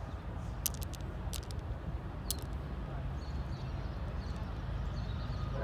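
Low, steady rumble of approaching Norfolk Southern diesel locomotives, slowly growing louder, with a few sharp clicks about a second in and again after two seconds.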